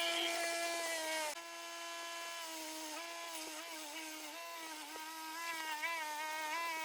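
Small high-speed rotary tool motor running with a steady whine, its pitch sagging briefly each time it is pressed against the work. The level drops about a second in.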